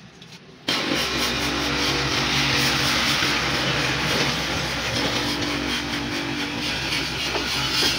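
Pedestal buffing machine running steadily, its cloth buffing wheel polishing a red plastic tail light lens: a steady motor hum under a loud hiss of the wheel on the plastic. It starts abruptly just under a second in.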